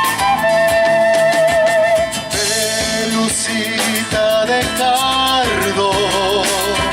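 Instrumental introduction of a Latin American folk-pop song, with a wavering flute-like lead melody over strummed guitar and a steady drum beat.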